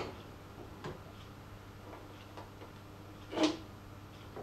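Faint ticks from a manual milling machine's table being wound into position over a steady low hum, with one sharper clack about three and a half seconds in.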